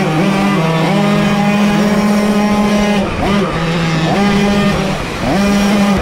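Small two-stroke moped engine running hard near full throttle, its note dipping and climbing back up twice in the second half as the throttle is eased and reopened through the turns.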